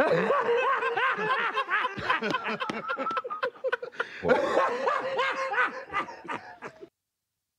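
Several men laughing hard together, overlapping cackles and chuckles, which cut off abruptly about seven seconds in.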